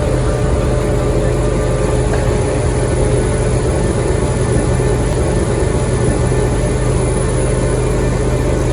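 Heavy diesel farm machinery running steadily with a constant, even drone and no change in revs.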